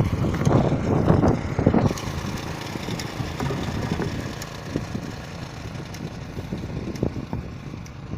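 The single-cylinder engine of a Carver MT-650 walk-behind tractor idling steadily and growing fainter. There are irregular rustling knocks during the first two seconds.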